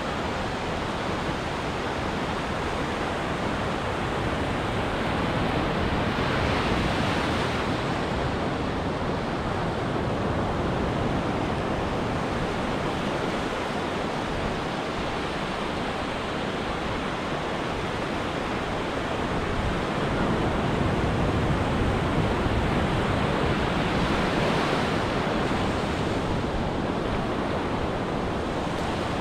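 Ocean surf washing onto a beach: a steady rush of breaking waves that swells louder twice, about a quarter of the way in and again past the middle.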